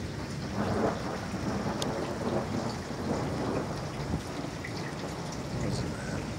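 Thunder from a lightning flash rolling in, a low rumble that swells under a second in and keeps rumbling on.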